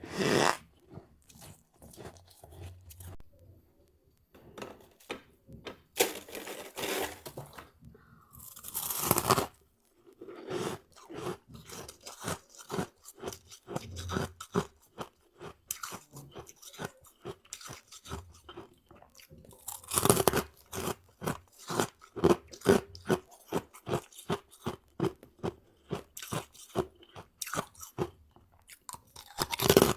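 Freezer frost (snow ice) being bitten and chewed right at the microphone. Several louder bites break in among long runs of quick, close crunching chews.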